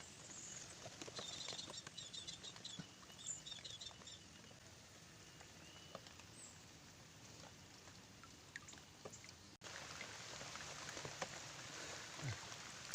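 Faint outdoor pond-side ambience: a quick series of high chirps from a small animal in the first few seconds, over a soft hiss of light pattering water with scattered small clicks.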